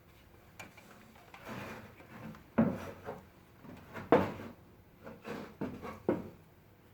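Steering rack on a VW Passat B5+ knocking from below: a string of irregular dull clunks, the loudest about two and a half and four seconds in, with another near the end.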